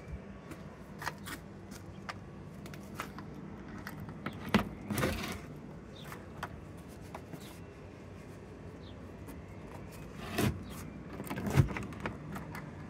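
Clicks and knocks of a small metal latch and the plywood door of a homemade bicycle camper as the door is opened and later shut, with a louder knock and rattle about a third of the way in and again near the end, over a faint steady hum.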